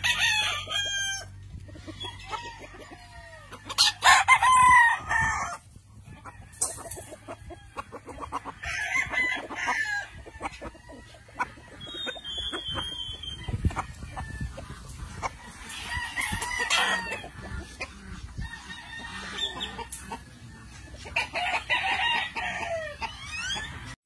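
Gamefowl roosters crowing repeatedly, with clucking between the crows.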